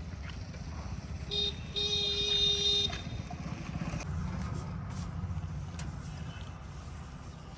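A vehicle horn sounds twice about a second in, a short toot and then a longer blast of just over a second, over an engine running steadily at a low pitch.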